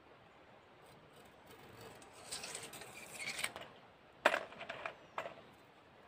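Rustling handling noise, then one sharp metallic clink about four seconds in, followed by a few lighter clicks.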